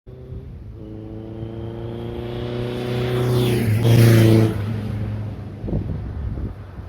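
Kawasaki KZ1000LTD's air-cooled inline-four engine running, growing louder to a peak about four seconds in, then easing back.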